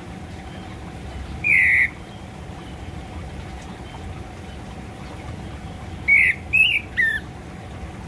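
Orange-headed thrush (anis kembang) giving short harsh calls: one about a second and a half in, then three in quick succession near the end, over steady low background noise.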